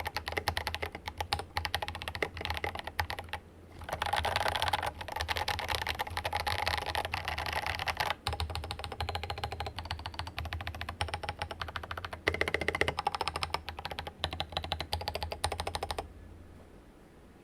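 Fast typing on a Rama Works Kara mechanical keyboard with lightly lubed Drop Invyr Holy Panda tactile switches: a dense run of keystrokes with a short pause about three seconds in. The typing stops shortly before the end.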